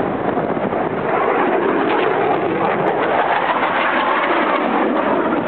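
Blue Angels F/A-18 Hornet jet engines passing overhead: a loud, steady rush of jet noise whose pitch slides down in the middle as the jets go by.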